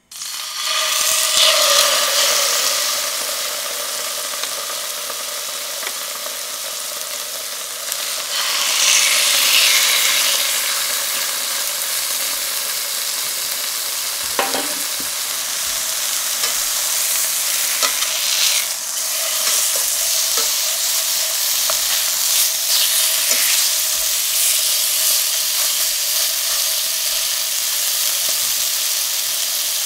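Chicken breasts frying in rapeseed oil in a stainless steel frying pan: a steady sizzle. It swells loudly about a second in and again around nine seconds in, with a few faint knocks in between.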